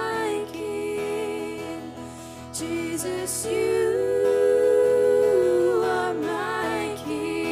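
A slow worship song: women's voices singing long held notes over acoustic guitar accompaniment.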